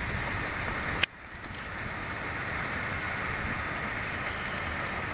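Steady outdoor rushing noise with no distinct events. A sharp click about a second in cuts it, and the noise comes back quieter and slowly builds up again.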